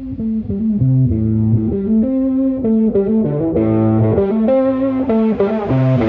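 Background music: a guitar-led instrumental with bass notes moving in a steady rhythm.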